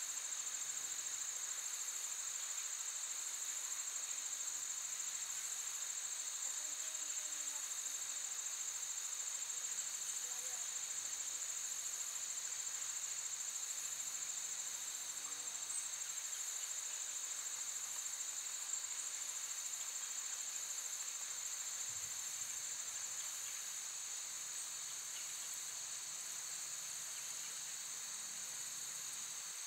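A steady, high-pitched chorus of insects that continues without a break. There is no rumble from the eruption.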